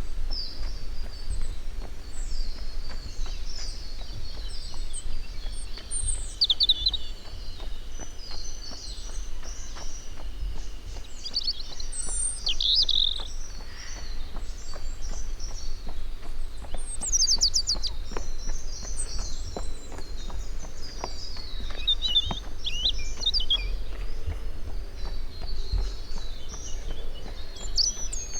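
Many small forest birds chirping and singing, short overlapping calls and trills coming one after another, over a steady low rumble.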